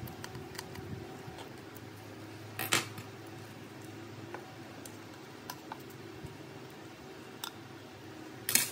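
Small hand tools clicking and tapping on phone parts during a repair, over a steady hum. Two louder, brief scraping clatters come about a third of the way in and again near the end.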